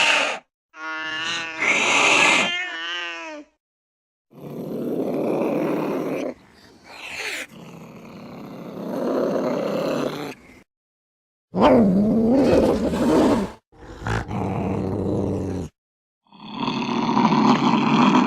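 A string of separate angry-cat sounds with short silent gaps between them: first one drawn-out, wavering yowl, then several harsh growls and hisses, one of them sliding low in pitch.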